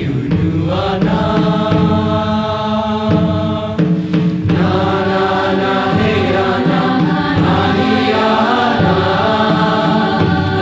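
Choir singing a joik-based chant in held chords over a low sustained drone.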